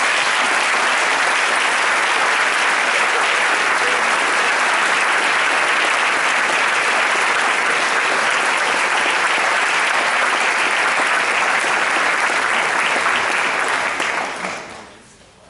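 Audience applauding, a steady dense clapping that dies away near the end.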